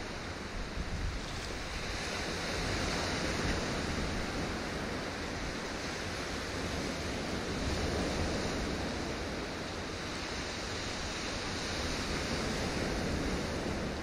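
Sea waves washing against a rocky shore, a steady rush of surf that swells gently every few seconds, with a low wind rumble on the microphone.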